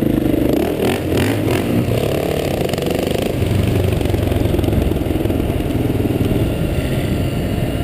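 Motorcycle engine running, its pitch rising and falling over the first few seconds, with a few sharp clicks about a second in.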